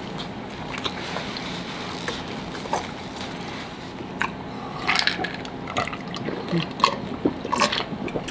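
Close-miked eating and drinking: wet chewing and lip smacks, and swallows from a glass mug of iced drink. Scattered short clicks, busier in the second half.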